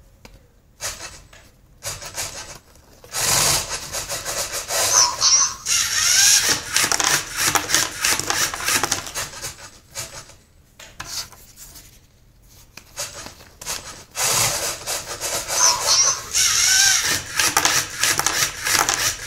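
LEGO Mindstorms NXT motors and plastic gears running the vending mechanism through two cycles of several seconds each, plastic parts rubbing and grinding under a motor whine that rises and falls, as the machine takes in a dollar bill and pushes out candy. Quieter stretches of short clicks come between the cycles.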